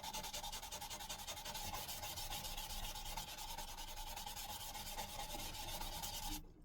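Abrasive sanding on the steel head of an old axe, a steady even rasp that stops suddenly near the end. This is the early polishing stage of the rust-removal restoration.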